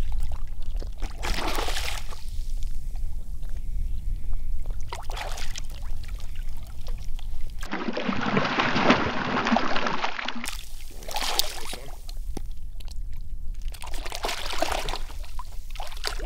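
Hooked speckled trout splashing and thrashing at the water's surface in short bursts, the longest and loudest about eight seconds in, over a steady low rumble.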